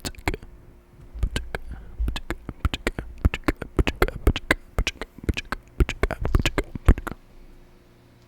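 Candle flame crackling and popping in a fast, irregular run of sharp clicks for about seven seconds, then dying down: a really weird noise from the candle.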